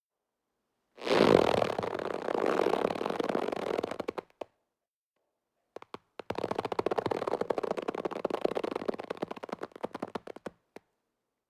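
Rubber being stretched, creaking and squeaking in a rapid grainy rasp, twice: one stretch about a second in and a second about halfway through, each lasting three to four seconds.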